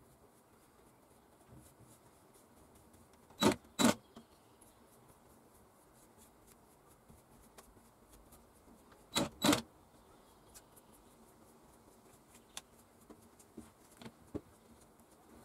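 Cordless drill blipped on and off in two pairs of short bursts, spinning a wooden knob held in its chuck. A few faint clicks near the end.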